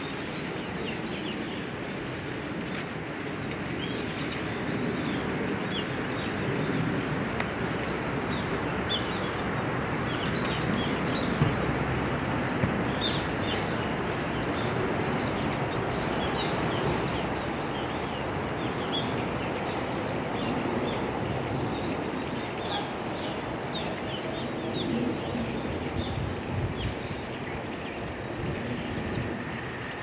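Many short, high, thin chirps of Japanese white-eyes, scattered throughout and thickest in the middle, over a steady background noise.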